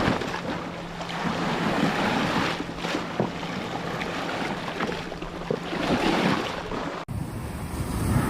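Ocean waves breaking and washing in surges, with wind buffeting the microphone. About seven seconds in the sound cuts abruptly to another stretch of surf with a deeper rumble.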